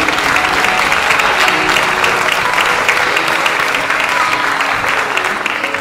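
Theatre audience applauding, a dense steady clatter of clapping that begins to fade near the end, with music faintly beneath.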